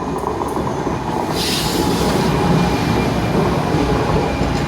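NJ Transit Arrow III electric multiple-unit cars rolling past as the train pulls into the station, with a steady rumble of wheels on the rails. There is a short hiss about a second and a half in.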